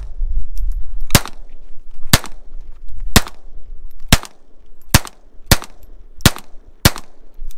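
Pistol shots fired in steady succession: eight shots, about one a second at first, coming a little faster near the end.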